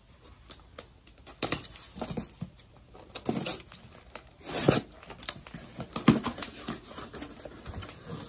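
Cardboard shipping box being cut open with a box cutter and its flaps pulled open: an irregular run of cutting, tearing and cardboard scraping and rustling sounds, the loudest a little over four and a half seconds in.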